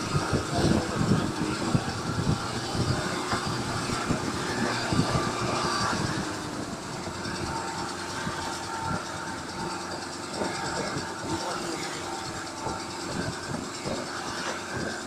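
Car engine running under load with the driven wheel spinning on ice, and a rapid, irregular clatter from a rubber strap wound around the tyre for grip slapping as the wheel turns. The clatter is densest in the first six seconds, then eases under the steady engine drone.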